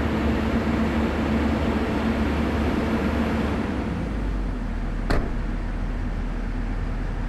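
Heavy diesel engine of the recovery machinery running steadily, its note easing lower about four seconds in. A single sharp knock sounds about five seconds in.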